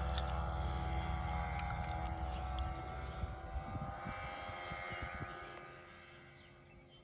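Single-engine propeller airplane flying away, its engine note a steady run of tones, running smoothly without missing, that fades out over the last couple of seconds. Low wind rumble on the microphone in the first few seconds.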